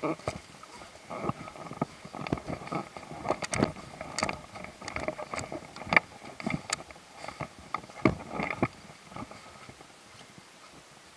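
Footsteps walking over fallen leaves and broken branches: irregular crunches and knocks about one or two a second that die down near the end.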